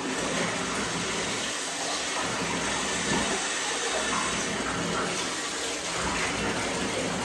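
Water running steadily from a bathtub faucet into the tub.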